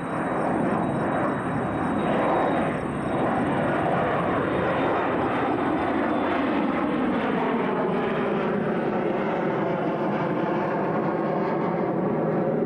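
Boeing 747's four jet engines at approach power as the airliner passes low and flares just before touchdown: loud, steady jet noise whose tones slide downward in pitch through the second half as it moves away down the runway.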